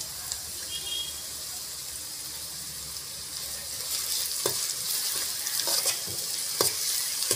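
Onions and green chillies sizzling in hot oil in a pan while a spoon stirs them. The sizzle grows louder about halfway through, and the spoon knocks against the pan a few times near the end.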